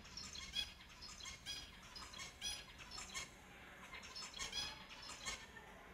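Several finches calling: many short, chirpy call notes, often overlapping, come in quick clusters. There is a split-second dropout at the very start.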